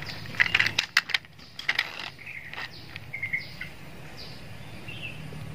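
Sharp clicks and knocks of plastic toy trucks being handled and set down on a concrete ledge, mostly in the first two seconds. Short bird chirps follow, some falling in pitch.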